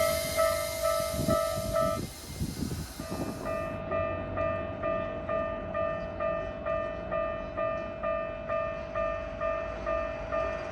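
Japanese level-crossing warning bell ringing its repeating "kan-kan" tone, about two strokes a second, over the noise of a Keikyu train passing for the first two seconds. The bell breaks off briefly, then resumes and keeps ringing steadily with the train noise gone.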